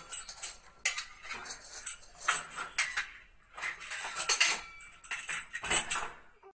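Metal wrench clinking and scraping on the chrome wall connectors of a bath/shower mixer as they are fitted: an irregular series of sharp metallic clinks and taps with short high ringing.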